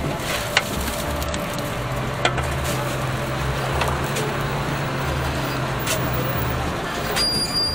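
Fishing boat's machinery running under a steady hiss, with a throbbing low rumble and a low hum that comes in about two seconds in and stops near the end, while a brail net of tuna is swung over the ice-filled hold. A few sharp knocks from deck handling.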